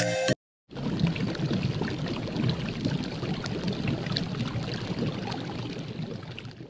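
Music cuts off just after the start; after a short silent gap, a steady crackling, watery noise full of small pops sets in and fades out near the end.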